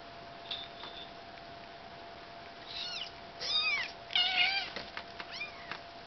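Bengal kitten mewing: a cluster of short, high mews that fall in pitch, about three to five seconds in, followed by a couple of fainter ones.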